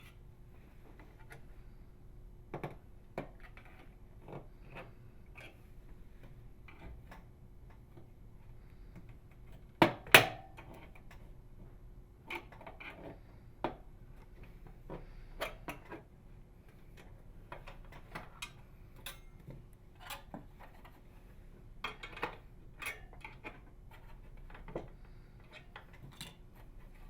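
Plastic retaining tabs of a Frigidaire microwave oven door being pried apart with a putty knife and small flathead screwdriver: irregular clicks, scrapes and small snaps of tools on plastic, with one sharp loud snap about ten seconds in as a tab pops free.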